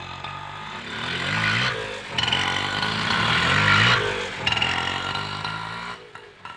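Indian auto rickshaw's small engine running under way. Its pitch climbs and drops back several times, over a steady rattle. The engine sound falls away sharply near the end.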